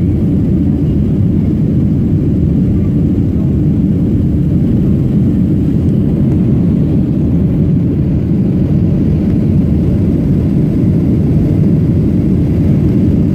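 Steady, loud low rumble inside the cabin of a Southwest Airlines Boeing 737 climbing after takeoff. This is the jet engines and the rush of air past the fuselage, heard from a window seat near the wing.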